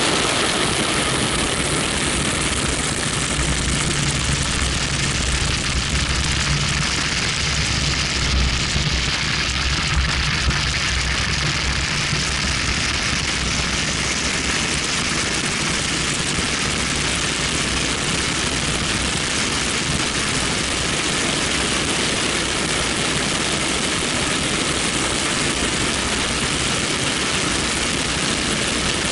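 BMW 1M at track speed, heard from outside the car by the front left wheel: a steady rush of wind on the microphone, with tyre and engine noise underneath.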